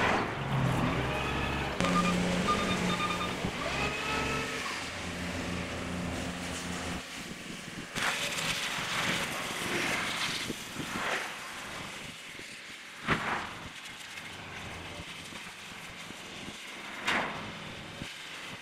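An engine running steadily for about the first seven seconds, then dropping away, followed by scattered bursts of noise and two sharp knocks.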